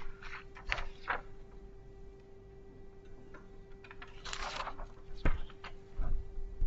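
Quiet room tone with a steady hum under scattered small knocks and rustles. There is a short rustle about four and a half seconds in, and a sharp knock just after it.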